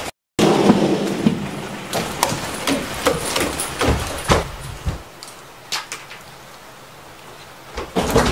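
Irregular clicks and knocks of a disassembled electric fan's motor and parts being handled and worked on, busier in the first half and sparser later. The sound drops out for a moment just after the start.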